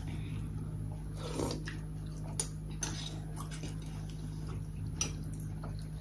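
People eating at a table: chewing and mouth sounds, with a few light clicks of spoons and forks on bowls and plates, over a steady low hum.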